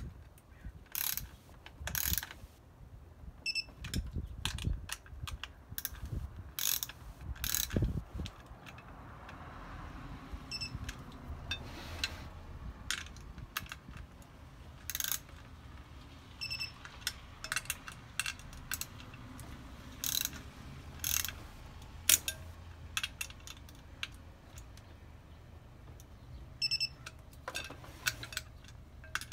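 Small hand ratchet clicking in short, irregular runs as it turns the bolts of a two-piece brake rotor, snugging the ring to its hat.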